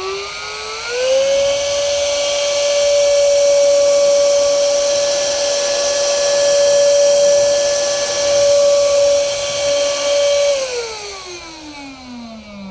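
Vpcok BST-718 rechargeable desktop vacuum cleaner's small motor running: a high whine that climbs to full speed in the first second, holds steady for about ten seconds, then winds down with falling pitch near the end as it is switched off.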